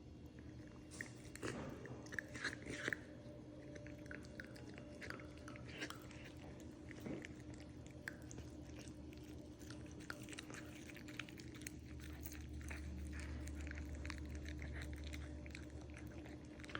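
A cat chewing and biting a crunchy snack: a run of small, irregular crunching clicks, loudest in a cluster a second or two in.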